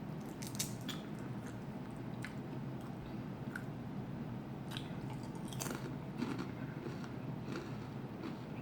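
Close-up chewing and crunching of thin-cut homemade potato chips, with irregular crisp crunches bunched about half a second in and again around five to six seconds in.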